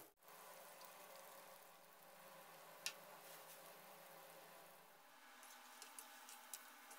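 Faint sizzling of batter-coated egg tofu slices deep-frying in hot oil, with one sharp pop about three seconds in and a few small crackles near the end.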